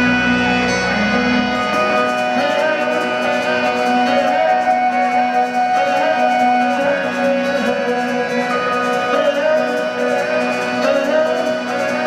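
Indie folk-rock band playing live: an instrumental passage of electric and acoustic guitars over sustained steady tones, with no vocals. A deep bass note drops out about two seconds in.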